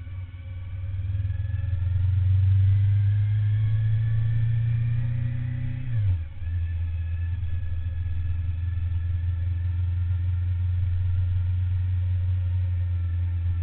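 Suzuki SV1000N's 90-degree V-twin engine pulling under acceleration, its note rising for about six seconds. An upshift then drops the revs, and it runs steadily at the lower pitch.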